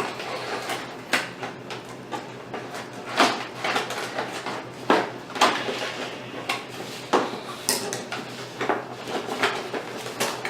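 Scissors snipping and stiff plastic toy packaging being worked loose, with irregular sharp clicks and crackles.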